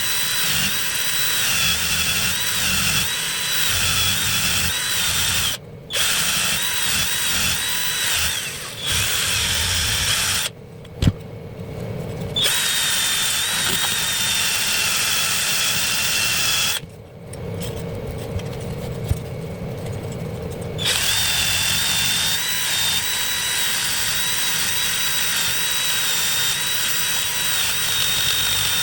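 Small electric power tool motor, like a drill, running with a steady, slightly warbling high whine that stops and restarts several times.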